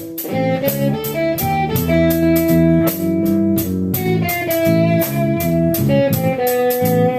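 Blues band playing an instrumental passage between vocal lines: guitar carries held and moving notes over a steady beat.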